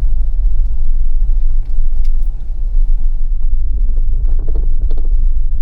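Jeep driving, heard from inside the cabin: a steady low rumble of engine and road noise.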